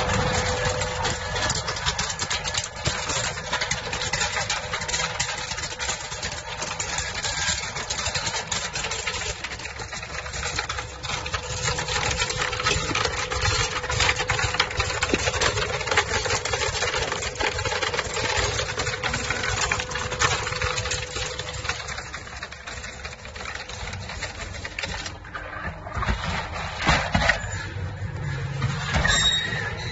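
Belt-type optical color sorter running on almond kernels: a steady machine hum with a constant tone, overlaid by a dense, continuous patter of small clicks.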